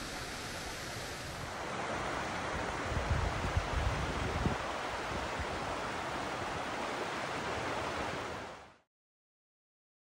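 Steady rushing of water over rocks from a stream and waterfall. About two seconds in it gives way to a slightly louder rush of a fast-flowing river, with a few low gusts of wind on the microphone. The sound fades out near the end.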